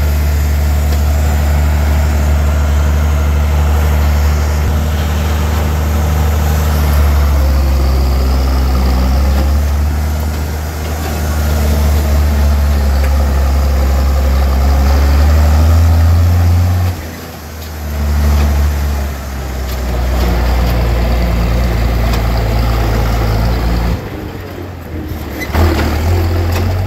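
Open-station farm tractor engine running under way with a steady low drone. The engine note drops off briefly twice, about two-thirds of the way through and again near the end, as the throttle eases or a gear changes.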